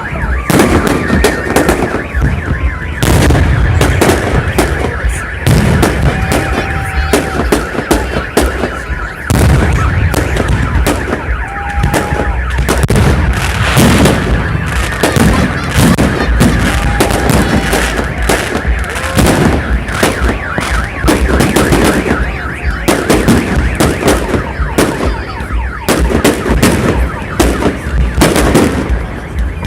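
Festive fireworks salute: a dense, rapid string of firework shells bursting with bangs and crackles, and a steady high-pitched tone running underneath.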